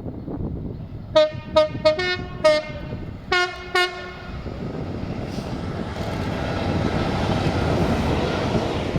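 Two-tone train horn giving a quick series of about seven short toots, alternating a higher and a lower note, followed by the rising rumble of the train running past.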